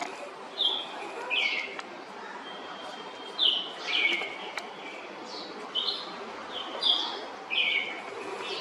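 Birds chirping: short, high calls that fall slightly in pitch, about ten of them at uneven intervals.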